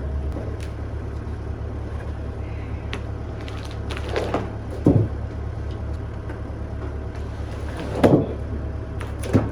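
An engine running steadily at a low idle, with a few short knocks over it, the sharpest about five, eight and nine seconds in.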